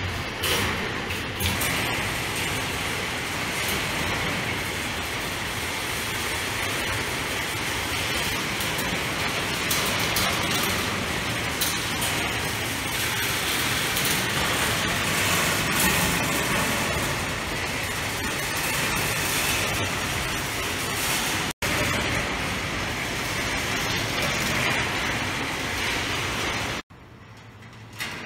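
Metal balls rolling along the wire rails of a large marble run, a steady rattling rumble with scattered clicks. It drops to a quieter level near the end.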